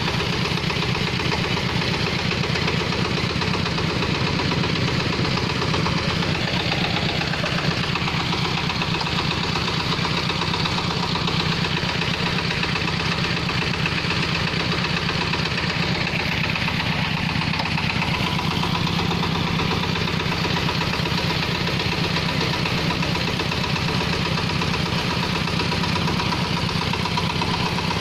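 Stationary diesel engine running steadily at constant speed with a fast, even chugging, driving a clay-brick extruder as it pushes out a column of clay.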